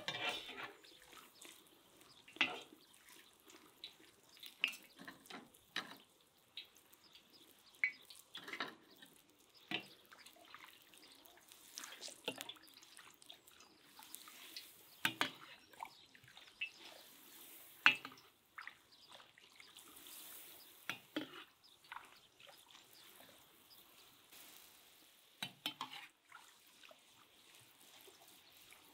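Hot oil frying a giant cheburek in a cast-iron kazan, with a faint sizzle under it. A ladle scoops oil and pours it over the top of the pasty, giving short splashes and drips at irregular intervals of one to three seconds. The loudest splash comes a little past the middle.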